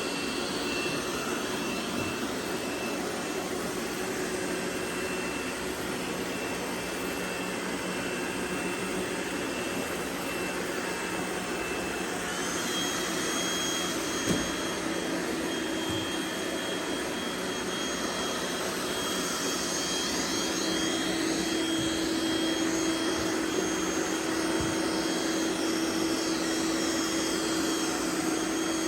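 Several robot vacuum cleaners running together on carpet: a steady whir with thin high-pitched whines. One whine steps up in pitch about halfway through, a lower hum grows stronger later on, and there is a single short knock.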